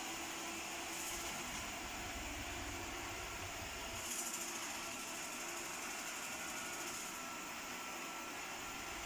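Xiaomi Robot Vacuum E10 running, a steady motor whir with hiss; the hiss briefly brightens about a second in and again about four seconds in.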